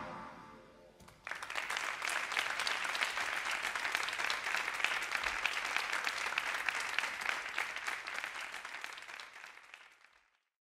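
The band's last notes ring out and die away, then audience applause starts about a second in, holds, and thins out to nothing near the end.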